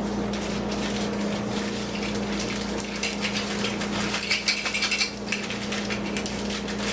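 Plastic vacuum accessories and packaging being handled: light clicks, taps and rattles, busiest about four to five seconds in, over a steady low hum.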